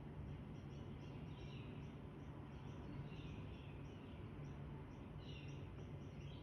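A bird calling over and over, a short falling chirp about every two seconds, faint over a steady low hum.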